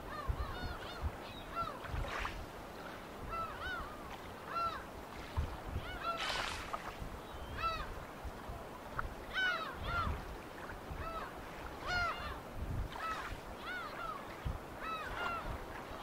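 A hand-rowed boat under way, its oars squeaking in the oarlocks in short paired squeals with the strokes, with occasional water splashes and low knocks.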